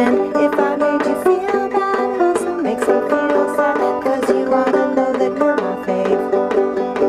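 Clawhammer banjo playing an instrumental passage: a quick run of plucked notes over a steady ringing low note.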